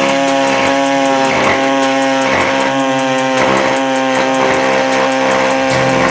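Pneumatic air saw running at steady speed with a loud, even buzzing tone, its reciprocating blade cutting through the sheet-steel front guard to open the snorkel hole. Harsher rasps surge in about once a second as the blade bites.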